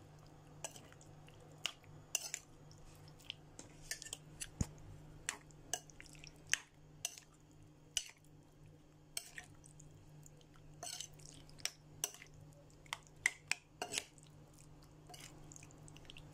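Metal spoon stirring raw chicken pieces in a sauce marinade in a ceramic bowl: irregular light clinks of spoon on bowl, about one or two a second, with soft wet squishing of the meat. A low steady hum runs underneath.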